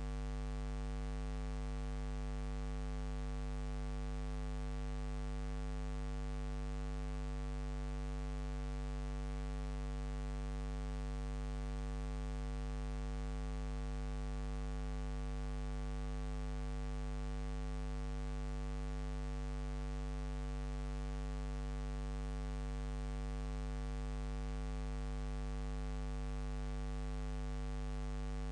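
Steady electrical mains hum with a faint hiss underneath, unchanging throughout, with no other sound. This is the noise of the transfer chain laid over silent home-movie film.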